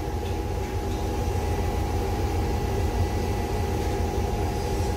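Kobelco CKE2500-G crawler crane's diesel engine idling, heard from inside the operator's cab: a steady low hum with a faint steady whine above it.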